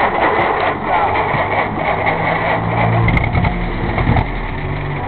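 A WWII Willys jeep's four-cylinder flathead engine running steadily, its low hum louder about three seconds in.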